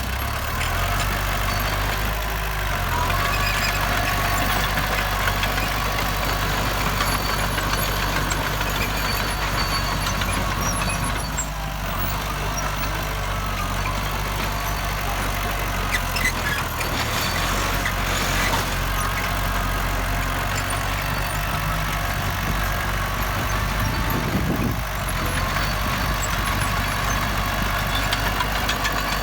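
Heavy diesel engine of earthmoving machinery running steadily, its pitch stepping up and down a few times as the throttle changes.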